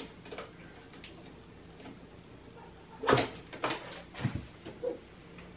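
Handling noises as packing tape is peeled off a new embroidery machine: quiet at first, then a few short knocks and rustles about three seconds in and a few more over the next second.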